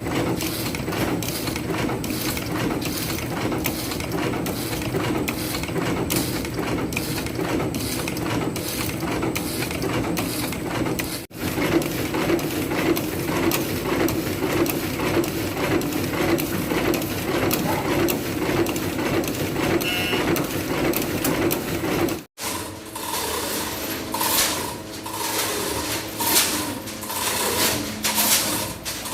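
A repaired cutting machine running on its test run: a steady mechanical clatter of fast, even strokes. The sound breaks off briefly twice, and after the second break it comes back with a steady hum and more uneven clatter.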